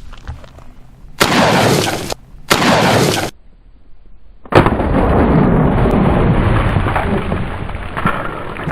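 A single 12-gauge pump shotgun blast from a Mossberg Maverick 88 firing a 3-inch shell, about four and a half seconds in. Around it, gusts of loud rushing noise hit the microphone: two short ones before the shot and a long one after it.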